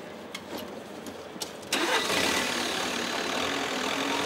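Linde forklift engine starting with a sudden catch a little under two seconds in, then running steadily. A few light knocks are heard before it.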